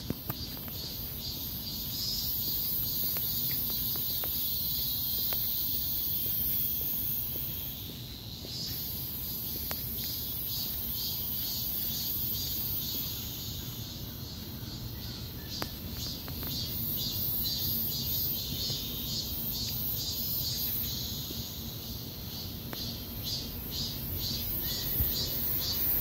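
Insects calling in the trees: a steady, very high-pitched buzz with runs of rapid, evenly repeated chirps, over a low rumble. The buzz breaks off briefly about eight seconds in.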